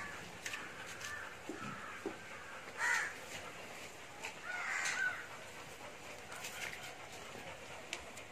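Two short, harsh animal cries, about three and five seconds in, with a few faint clicks around them.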